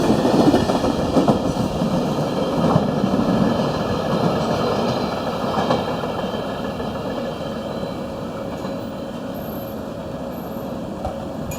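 Freight train's wagons rolling past on the rails, with occasional clacks over rail joints. The sound fades gradually as the train moves away.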